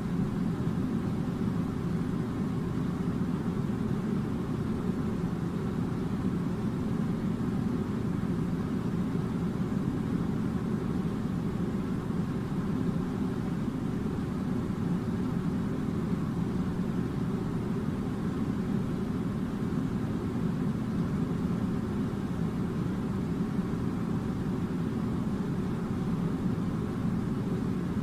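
A steady, even low drone of machinery that does not change or break.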